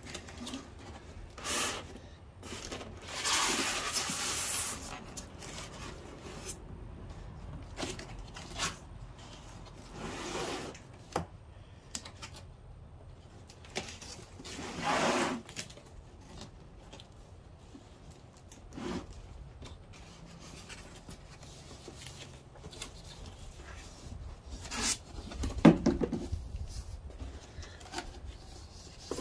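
Cardboard box flaps and plastic wrapping around a subwoofer being handled, rubbing and rustling in scattered bursts, with a sharper bump near the end.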